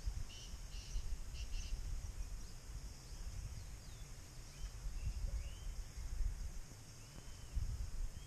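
Outdoor mountain-forest ambience: a steady high insect drone, with a few faint bird chirps scattered through, over a low, uneven rumble of wind on the microphone.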